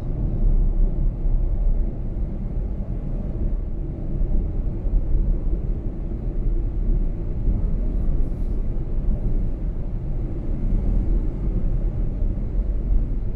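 Steady low road rumble inside the cabin of a 2021 Tesla Model Y driving on an asphalt highway: tyre noise with wind.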